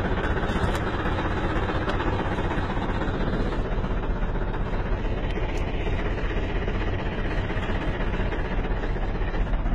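Engine of a heavy work machine running steadily, a dense even drone with a strong low rumble, heard from close by its cab.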